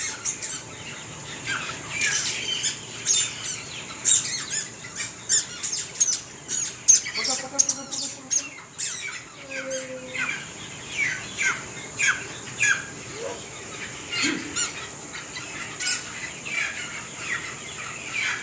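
Poultry flock calling: many short, high cheeps, each falling in pitch, several a second. A few brief lower tones break in about halfway through.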